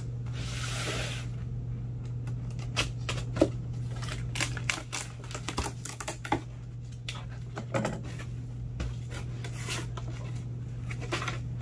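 Box cutter slicing through the packing tape of a cardboard box, a brief hiss about a second long. After it come scattered clicks and taps as the cardboard flaps are pulled open and the packing inside is handled.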